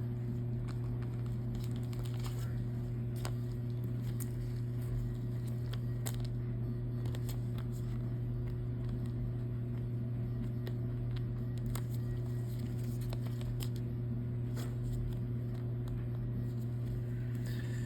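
A steady low hum runs throughout, with faint scattered clicks and rustles of trading cards being handled.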